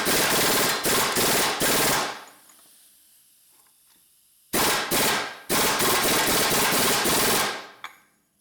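Impact wrench hammering on a nut of a classic Mini 1275 A+ gearbox, in two spells of rattling bursts. The first spell lasts about two seconds. After a pause of about two and a half seconds, longer bursts run until just before the end.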